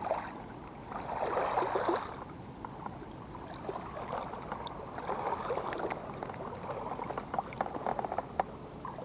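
Lake water splashing in irregular swells, with a run of small sharp splashes or ticks near the end.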